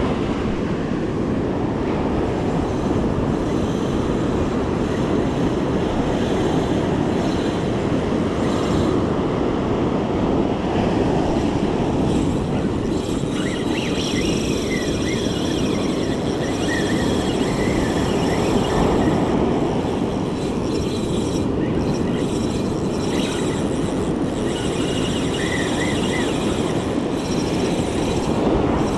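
Steady noise of ocean surf breaking on a sand beach, mixed with wind on the microphone. A few faint, high chirps come through in the middle and near the end.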